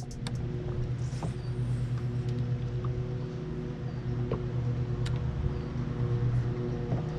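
Boat motor running with a steady low hum, while a few faint light clicks come and go.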